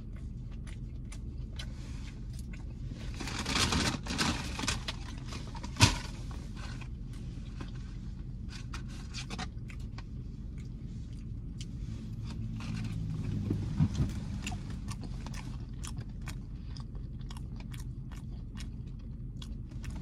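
Close-up eating sounds: scraping and chewing with many small clicks, over a steady low hum inside the car. There is a longer rustle a few seconds in, a sharp click about a second later, and a knock a little past the middle.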